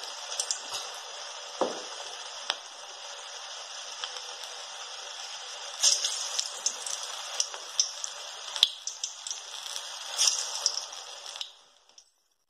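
Onion bondas deep-frying in hot oil in a kadai: a steady sizzle with scattered crackles and pops, louder about six and ten seconds in. It cuts off shortly before the end.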